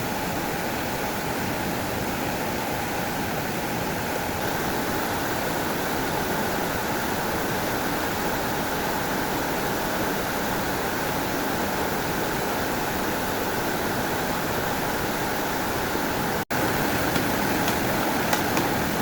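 Steady rushing of flowing stream water. It drops out for an instant about three-quarters through and returns a little louder, with a few faint clicks near the end.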